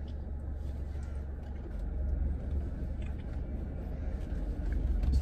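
Steady low rumble inside a car cabin, with faint small clicks and rustles over it.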